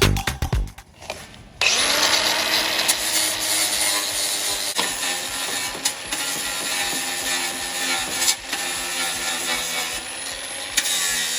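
A handheld power tool starts up about one and a half seconds in, rising to speed, then runs steadily with a harsh abrasive sound as it grinds or sands sheet metal on the truck's body.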